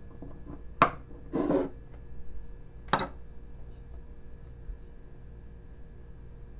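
Two sharp clicks about two seconds apart, with a brief rustle just after the first: a paintbrush and a wooden figure being knocked against a glass jar and set down on a wooden tabletop.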